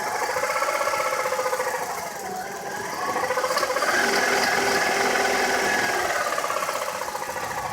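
Vehicle engine idling rough, its speed wavering, rising to a peak about halfway and then settling back down. The rough running is put down to the air cleaner being off.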